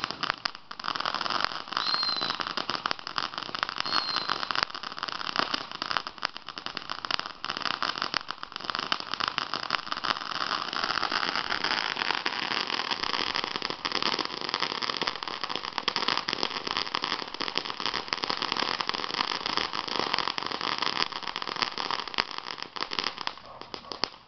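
Ground firework fountains spraying sparks with a continuous, dense crackling hiss, with short whistles about two and four seconds in.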